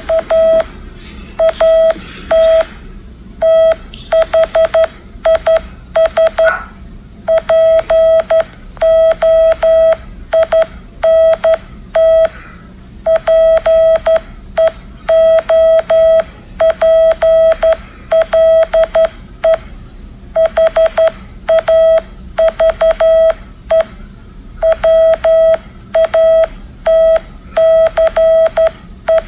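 Morse code beeping: a single steady mid-pitched tone keyed on and off in short dots and longer dashes, grouped into letters, with longer pauses between words.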